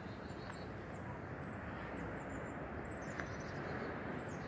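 Steady outdoor background noise with faint, brief high chirps of birds scattered through it.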